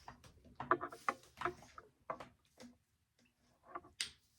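Light, irregular clicks and taps of a hot comb being handled and worked against the wig's hair and lace, with a short hiss near the end.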